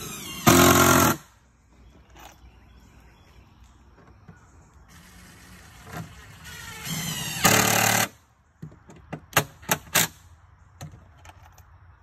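Cordless impact driver running screws into pressure-treated pine deck boards: a short burst about half a second in, a longer run from about five to eight seconds that rises in pitch, then several quick pulses near ten seconds as the screw is seated.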